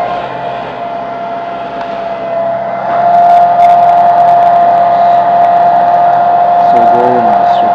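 Handheld hair dryer running on high, a steady high whine over rushing air, blowing hot air onto a laptop's graphics chip to reflow it. It is quieter for the first couple of seconds and comes back to full strength about three seconds in.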